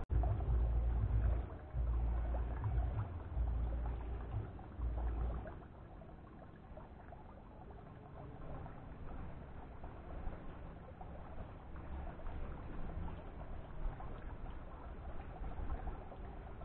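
Low wind rumble buffeting the microphone for about the first five seconds, then stopping, leaving a faint steady outdoor background.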